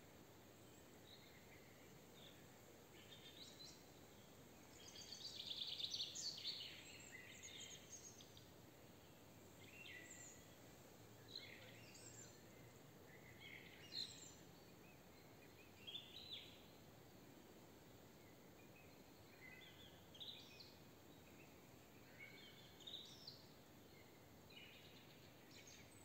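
Small songbirds singing, faint, in short chirping phrases every second or two, with the busiest and loudest stretch about five to eight seconds in, over a steady soft hiss of open air.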